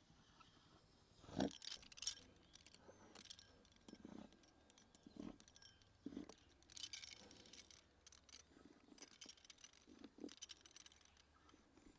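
Faint cutting strokes from a metal pastry wheel rolling through thin rolled dough on a wooden board, a short rasp or click roughly once a second, with light metallic clinks from the cutter.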